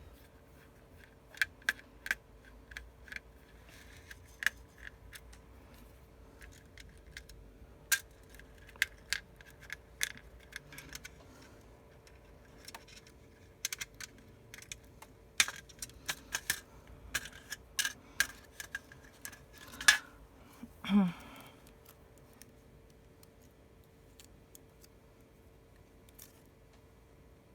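Irregular small clicks and metallic ticks of a precision Phillips screwdriver and tiny screws being worked out of an iPhone 6s, the clicks falling off after about twenty seconds. A faint steady hum runs underneath.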